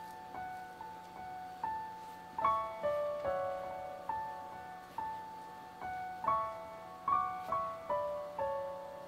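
Background music: solo piano playing a melody of single notes, each struck and left to ring and fade.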